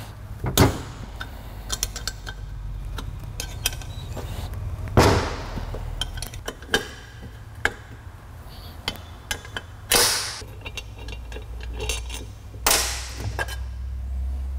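Open-end wrench clinking on the bolts and metal casting of a Roots supercharger as the inlet piece is unbolted: irregular small metallic clicks with a few louder knocks, over a steady low hum.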